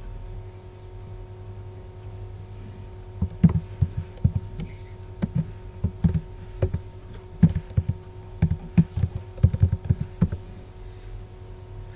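Typing on a computer keyboard: a run of short, irregular key taps starting about three seconds in and stopping just after ten seconds, over a steady low electrical hum.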